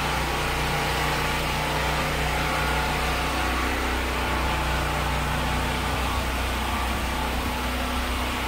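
Steady low mechanical hum of a running motor with a constant hiss over it; one higher tone in the hum drops out about six seconds in.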